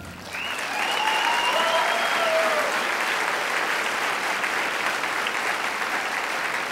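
Theatre audience applauding steadily at the end of a stage musical number. A few long held calls ring out over the clapping in the first two or three seconds.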